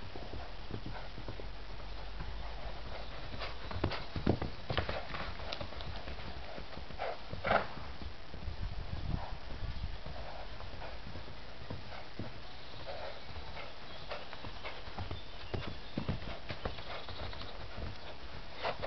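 Horses moving about, their hooves knocking on the ground in scattered clusters, loudest about four and seven seconds in, over a steady low rumble of wind.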